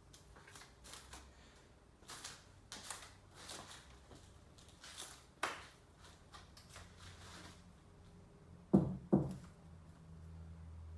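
Handling noise from cricket bats being unpacked and moved: a series of faint rustles and scrapes, then two sharp wooden knocks about half a second apart near the end.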